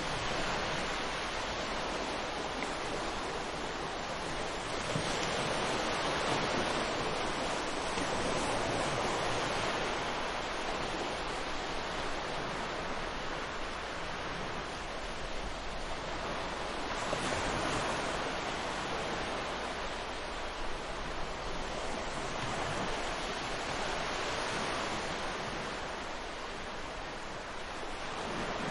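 Ocean surf washing in: a steady rushing wash of waves that swells and eases every few seconds.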